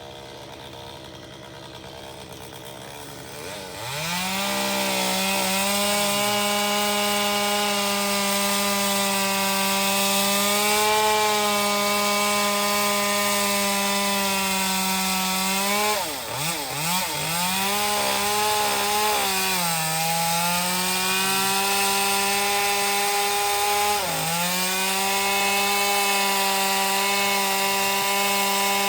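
Chainsaw engine idling, then opened to full throttle about four seconds in and cutting into a tree trunk, holding a high steady pitch. The pitch dips and picks up again briefly a few times around the middle and once more later.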